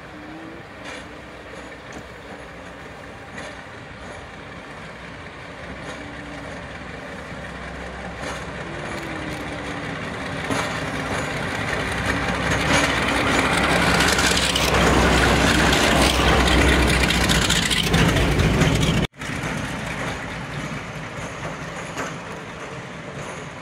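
Diesel locomotive running through a station, its engine growing steadily louder as it approaches and passes close by, loudest shortly before the end. The sound breaks off abruptly about 19 seconds in and carries on more quietly.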